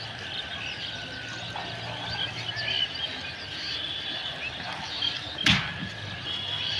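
Rural outdoor background with faint, scattered bird chirps over a low steady hum, and one sharp knock about five and a half seconds in.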